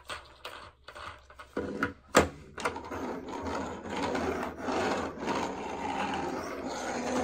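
Toy cars' wheels rolling and scraping across a wooden tabletop as they are pushed back and forth. A few knocks come in the first two seconds, the sharpest just after two seconds in, then a steady rolling rub sets in.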